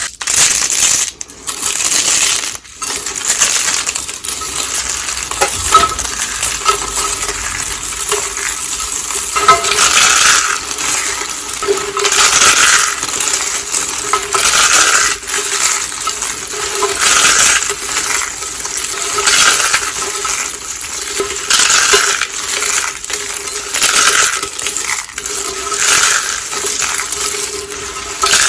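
Pink soap roses and soap curls being crushed, a crisp crunching that comes in repeated bursts about every second or two.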